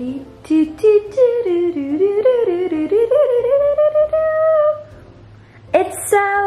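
A single wavering melody line that bends and glides in pitch, breaking off briefly about five seconds in before a held note near the end.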